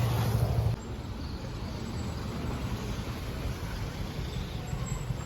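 Low, steady rumble of vehicle engines and traffic, louder for the first moment and then dropping abruptly to a steadier, quieter level.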